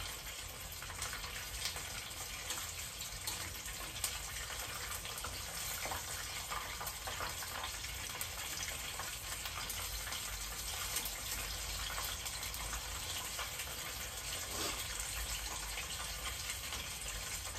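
Chicken karaage deep-frying in a small pot of hot oil: a steady sizzle with fine crackles throughout.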